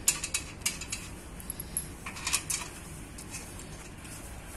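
Steel bolts and washers clinking against each other and against a metal frame plate as they are set into the bolt holes: a few sharp metallic clicks in the first second, and another cluster of clinks about two seconds in.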